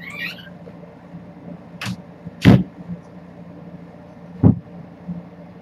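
Three sharp knocks, about 2, 2.5 and 4.5 seconds in, the middle one the loudest, after a brief high squeak at the very start, over a steady low hum.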